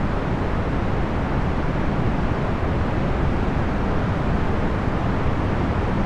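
Procedurally generated box fan noise: a steady, even rushing sound, strongest in the low range and thinning out toward the high end, with no changes or breaks.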